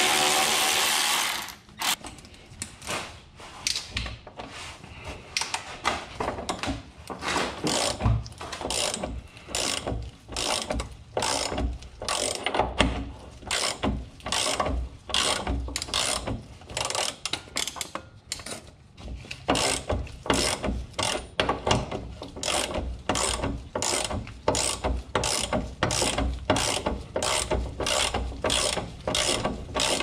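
A hand-held power ratchet runs briefly and cuts off about a second and a half in. Then a long-handled hand ratchet clicks steadily, about two clicks a second, as a bolt is turned.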